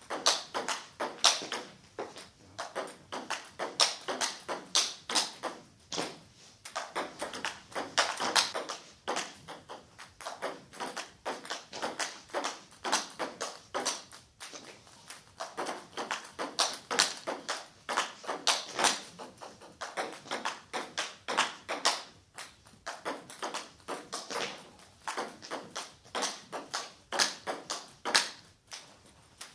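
Table tennis rally: the ball clicking off the bats and the table in a quick, steady back-and-forth, with a few brief breaks between rallies.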